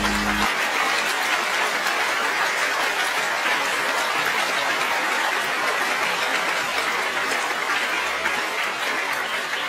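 An audience claps steadily in a small hall. The last held note of the backing music cuts off about half a second in.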